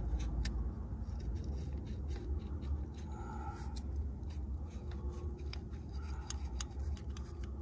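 Metal seal pick scraping and clicking inside a spark plug tube, worked down the side of a coil-pack boot that is stuck fast to the spark plug, over a low steady rumble. Many short irregular scrapes and ticks.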